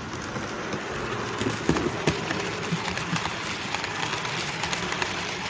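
Model train, an electric locomotive hauling a rake of coaches, running along the layout track: a steady rolling rumble with irregular clicks of the wheels over rail joints, a little louder about a second in as it comes closer.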